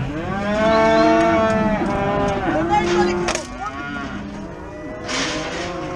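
Cattle mooing: one long, loud moo in the first couple of seconds, then shorter, quieter moos.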